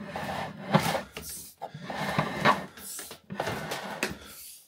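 Cable rod being hand-pulled down through a wall void, scraping and knocking against the brick and timber in irregular scrapes and clunks.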